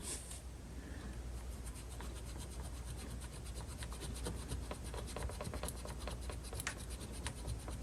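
Scratchy scraping and rubbing of a tool over small rusty metal pins, a dense run of fine scratches and light ticks, to clear rust off the pin ends.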